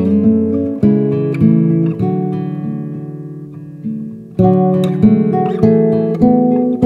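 Background music of acoustic guitar picking chords. In the middle one chord is left to ring and fade for a couple of seconds, and then the picking picks up again.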